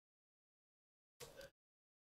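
Near silence, broken once, a little over a second in, by a brief faint sound lasting about a third of a second.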